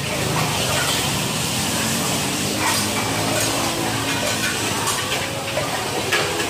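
Food sizzling in large woks, with metal spatulas clinking and scraping a few times, over a hubbub of voices.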